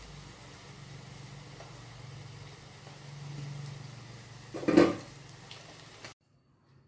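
Potato balls deep-frying in hot oil, an even sizzle over a low steady hum. About 4.7 s in, a metal slotted spatula clatters against the pan while lifting them out, and the sound cuts off suddenly just after 6 s.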